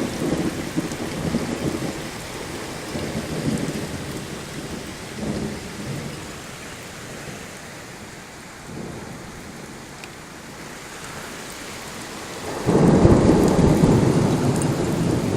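Thunderstorm: steady heavy rain with rolling thunder that rumbles and dies away over the first several seconds. Near the end a close thunderclap breaks in suddenly and keeps rumbling loudly.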